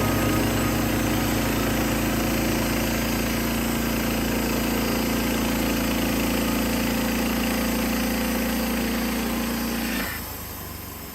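Norwood LM30 portable sawmill's gas engine running steadily, then shutting off about ten seconds in and winding down.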